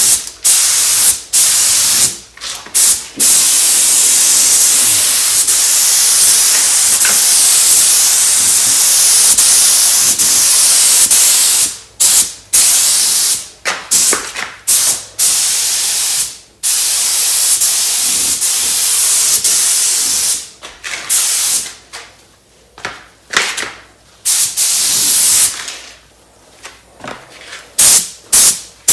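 Compressed-air spray gun spraying epoxy primer: a loud, steady hiss cut by brief trigger releases, turning into short bursts with longer pauses in the last third.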